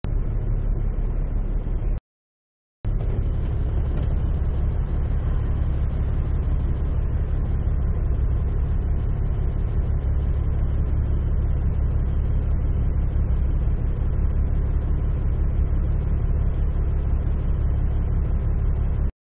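Caterpillar 3406E diesel engine of a 2000 Kenworth W900L semi truck idling, a steady low rumble heard from inside the cab. The sound drops out completely for under a second about two seconds in and again near the end.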